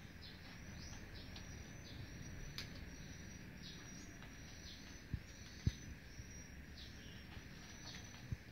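Small birds chirping, many short high chirps falling in pitch, over a faint steady background hiss, with a few dull low thumps in the second half.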